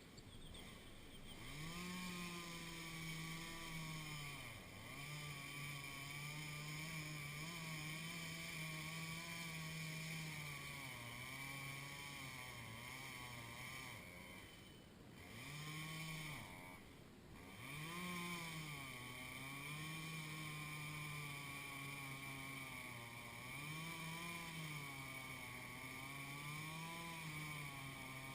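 Chainsaw running at high speed, its pitch wavering up and down as it works, with a few brief drops in speed along the way.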